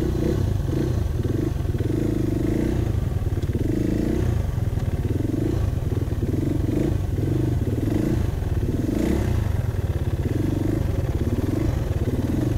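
Supermoto motorcycle engine held at steady revs under load during a circle wheelie, its note pulsing evenly about once a second.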